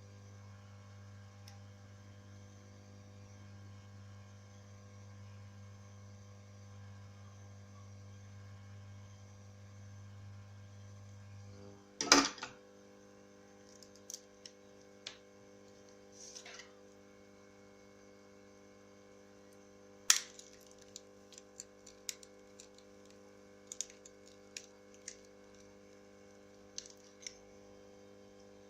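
Steady electrical hum that changes its tone after a loud clatter about twelve seconds in, followed by scattered light clicks and taps of small tools and phone parts being handled.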